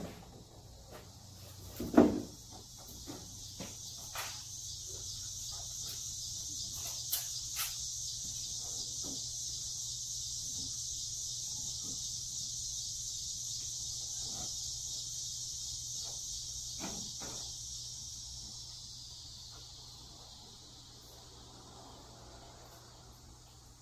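A car's trunk lid opening with a thump about two seconds in, then light knocks from hands working inside the trunk. Behind them a high insect buzz swells up, holds for over ten seconds and fades away near the end.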